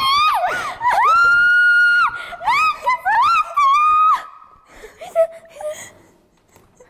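Young women shrieking in fright on touching something unseen in a mystery box. A long held high scream comes about a second in, then a run of shorter shrieks, dying away after about four seconds.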